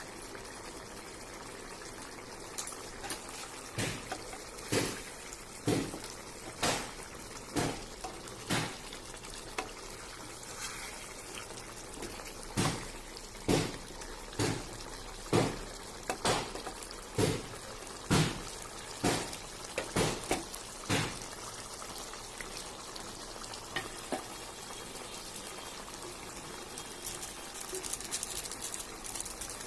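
Fish curry bubbling in the pan with a steady hiss, and through the middle a run of about twenty short knocks, evenly spaced about once a second.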